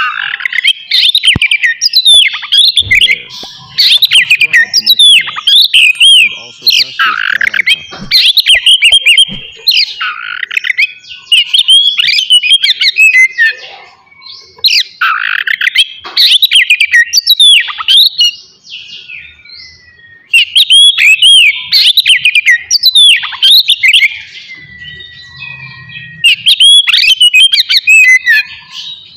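Oriental magpie-robin (kacer) singing a loud, varied song of rapid whistles, chirps and trills. It comes in bouts of a few seconds with short pauses between them.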